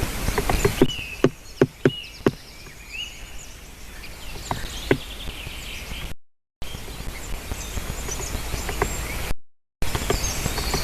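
Great spotted woodpecker pecking at wood: a quick run of about five sharp knocks, then single knocks spaced a few seconds apart, over outdoor background noise with faint short bird calls. The sound cuts out briefly twice.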